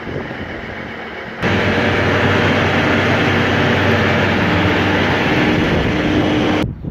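Tractor engine with the PTO driving a Meyer forage box's unloading beaters and cross conveyor as chopped rye is unloaded. A lower engine hum, then about a second and a half in a much louder steady mechanical run with a low hum, which cuts off abruptly near the end.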